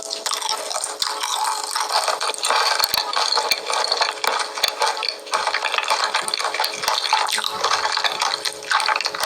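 Mukbang eating sounds: dense, wet crackling and clicking of food being chewed, with no pause.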